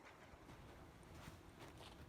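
Near silence: faint room tone with a couple of soft, faint noises.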